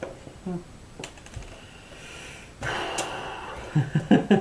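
Hand handling of a leather hat band and crocodile-leather band on a cloth-covered table: a few light clicks, then a rustle of the cloth with a sharp click about three seconds in. A short murmur of voice near the end.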